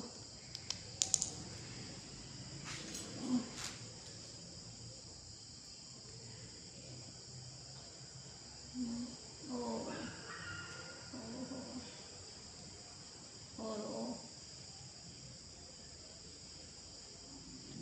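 Crickets trilling steadily, with a few faint clicks in the first seconds and several brief, quiet vocal sounds later on.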